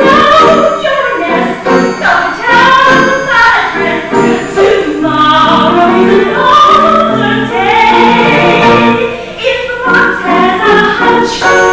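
Singing of a musical-theatre song over instrumental accompaniment, the melody gliding and changing note every second or so.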